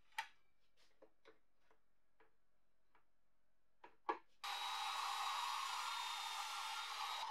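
A few light wooden knocks and clacks as wood pieces are set down on the saw table. About four and a half seconds in, an Evolution mitre saw's motor comes on abruptly and runs at a steady pitch as the blade cuts into a strip of wood.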